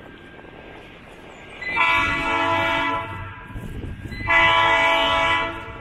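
Locomotive air horn of a GE 44-ton center-cab diesel sounding two blasts, each a little over a second long and a second or so apart, with a low engine rumble underneath.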